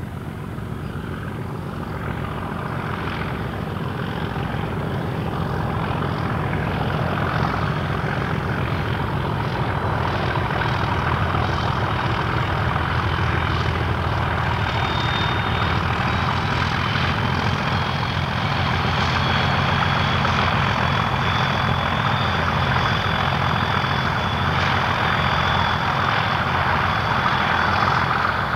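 Class 56 diesel locomotive 56034 working a loaded MGR coal train, its engine running steadily under load. It grows louder over the first several seconds as it approaches, then holds as the train passes. A thin high whine joins about halfway through.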